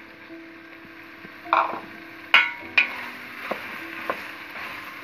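Vegetables sizzling in oil in a stainless steel pot as potato pieces go in and a wooden spoon stirs them, with three sharp clacks of the spoon and pot between about one and a half and three seconds in.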